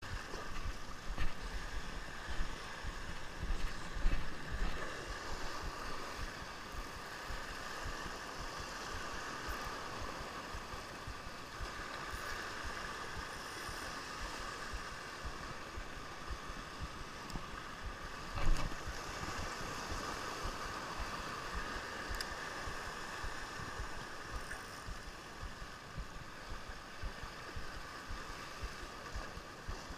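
Sea waves washing and foaming over shoreline rocks, a steady rush, with a few short low bumps on the microphone around four seconds in and again near the middle.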